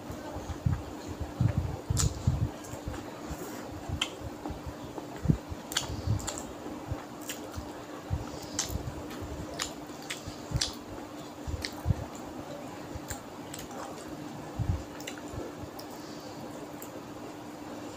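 Eating rice and fish curry by hand: wet squelching of the rice being mixed and chewed, with many short lip-smacking clicks. A steady low hum runs underneath.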